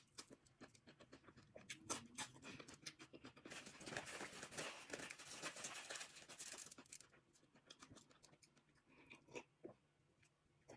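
Faint eating sounds from a seafood boil: crunching and tearing of shells with chewing. There are scattered sharp cracks, a denser crackly stretch from about three to seven seconds in, then it thins out.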